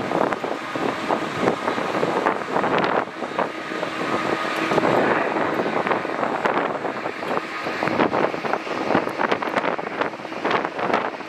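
Jet airliner engines running at low taxi power, with a faint steady whine, under heavy wind buffeting on the microphone.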